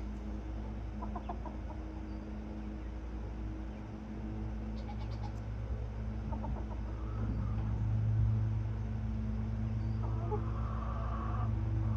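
Young chickens clucking softly, with short clusters of ticks, over a steady low hum. About ten seconds in, a hen's clucking comes louder and close.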